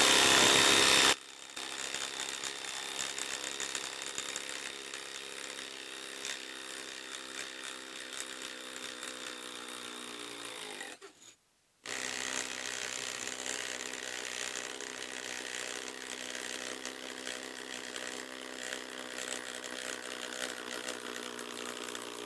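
Cordless impact drivers hammering large bolts into a log in two runs. A DeWalt DCF887 runs steadily for about ten seconds, its hammering pitch sagging slightly near the end. After a brief stop, a Makita brushless impact driver takes over and runs steadily. A loud rush of noise fills the first second.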